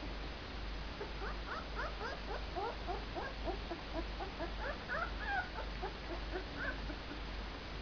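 Two-week-old puppies squeaking and whimpering in quick, short cries as they scramble over each other to reach their mother's teats. The cries come thick and fast from about a second in and die away near the end.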